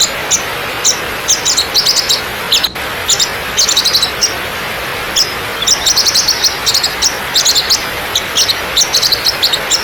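Steady rush of a waterfall, with many birds chirping in quick high bursts over it throughout. The sound drops out for an instant a little under three seconds in.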